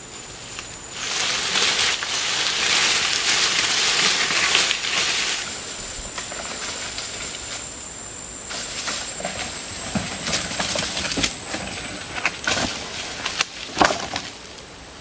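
Dry leaves and undergrowth rustling loudly as a long branch is dragged across the forest floor, then quieter rustling and several sharp knocks of a hand digging tool striking earth near the end.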